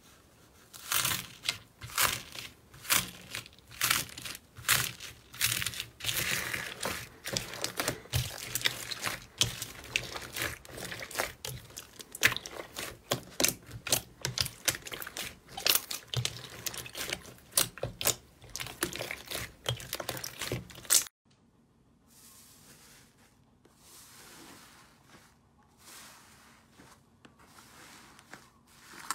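Crunchy foam-bead slime being pressed and kneaded by hand: a dense run of crisp crackles and pops. About two-thirds of the way through it cuts off abruptly, giving way to much quieter soft squishing of fluffy slime.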